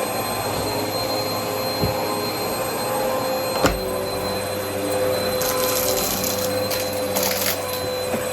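Vacmaster vacuum cleaner running steadily with a constant whine. There is a single knock about three and a half seconds in, and brief hissy rushes of air twice in the second half.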